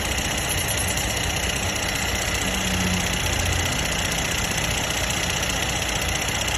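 Mercedes-Benz GLE43's M276 twin-turbo V6 idling, heard in the engine bay, with a steady high whine on top. The owner puts the abnormal noise down to the low-temperature coolant pump.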